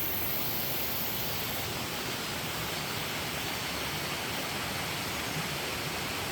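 A mountain stream's water rushing steadily, an even unbroken noise.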